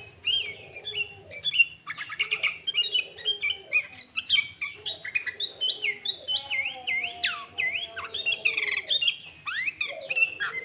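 Sooty-headed bulbul singing hard without pause: a dense, rapid stream of chirps, harsh squawky notes and quick rising and falling whistles, its song filled with imitations of the greater green leafbird.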